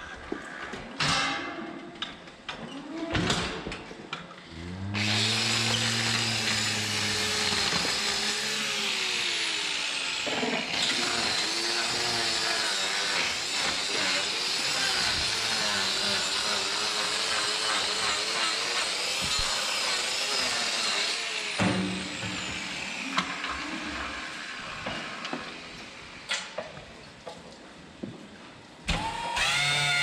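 Handheld power grinder trimming a cow's hoof. It runs for about sixteen seconds starting about five seconds in, with scattered knocks before and after it.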